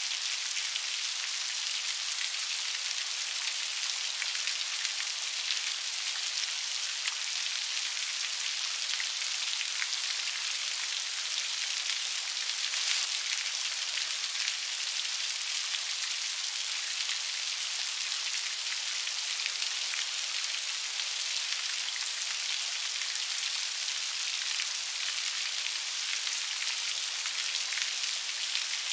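Steady rain falling, a continuous hiss of many fine drops pattering on a surface.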